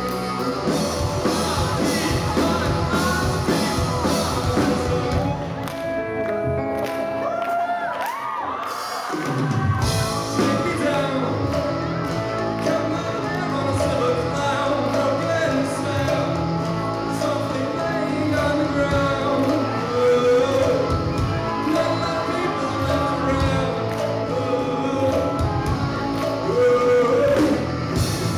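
Live rock band playing with a singer, electric guitar and drums, the low end dropping out for a moment about eight seconds in before the full band comes back in.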